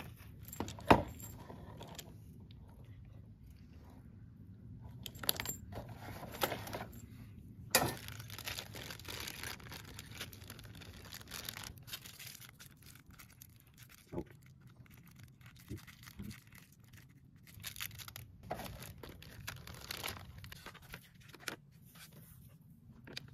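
Unboxing handling noises: plastic packaging crinkling and tearing, and small metal plasma-torch consumables (tips, electrodes, hose clamps) clinking together in a gloved hand, with a sharp click about a second in.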